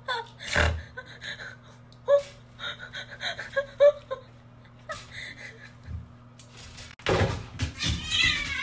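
A cat meowing in short, broken cries, with a sharp thump about half a second in and a steady low hum underneath. About seven seconds in, a louder scuffle starts, with a wavering, drawn-out cat yowl.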